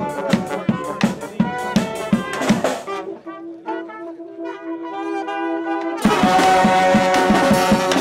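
Brass street band playing live: trombones, trumpet and saxophone over a steady drumbeat. About three seconds in the drums drop out and the horns hold long notes, then about six seconds in the whole band comes back in loudly on a held chord.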